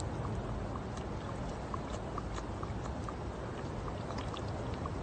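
A thirsty koala drinking from a plastic water bottle held to its mouth: water trickling and small wet clicks over a steady rushing background.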